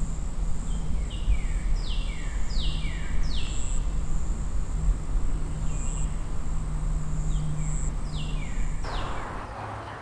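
Forest ambience: birds calling with short downward-sliding whistles, in one cluster early and another near the end, over a steady high insect buzz and a low steady hum that fades near the end.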